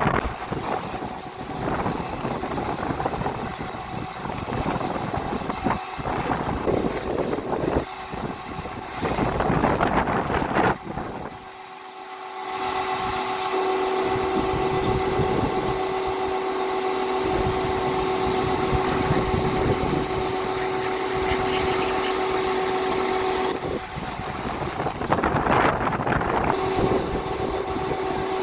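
AVA Go P40 electric pressure washer running while washing a car: a steady motor hum with a held whine, and spraying noise mixed in. Partway through it drops off for a moment and then settles back into the even hum.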